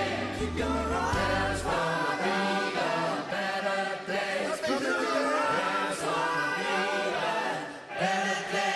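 Choir singing, with a low bass accompaniment that drops out about two seconds in, leaving the voices on their own.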